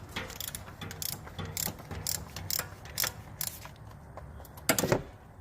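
Ratchet with an oil filter cap socket clicking as it is swung back and forth to loosen a Honda oil filter, with a louder clunk near the end.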